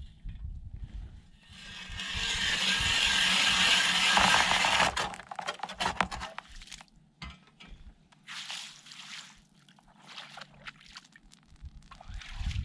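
Hand-cranked ice auger drilling through thin clear lake ice: a steady grinding scrape for about three seconds. Then come shorter scrapes, knocks and wet slushy sounds as the blades work in the hole among slush and water.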